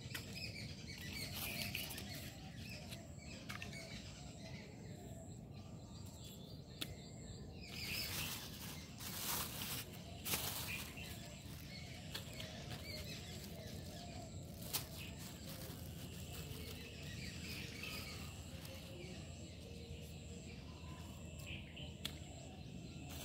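Quiet outdoor ambience by the water with faint bird chirps and a steady low rumble. A few brief rustling bursts come about a third of the way in, and there are occasional small clicks.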